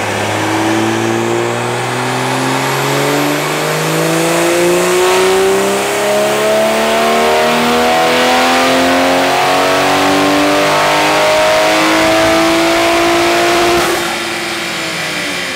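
Toyota Supra A90's turbocharged B58 inline-six, fitted with a PURE800 upgraded turbo, at full throttle on a chassis dyno. Engine pitch climbs steadily through one long pull of about fourteen seconds, then falls away as the driver lifts off near the end.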